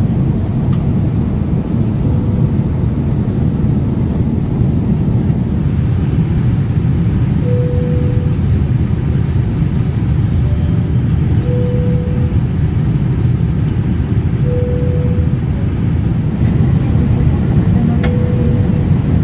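Steady low rumble of jet-airliner cabin noise in a Boeing 787 in flight, from the engines and the airflow. A short steady tone sounds four times over it, each lasting under a second.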